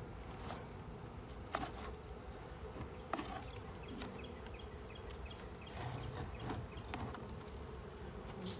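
Honey bees buzzing steadily around an open hive, with a few sharp clicks about one and a half and three seconds in.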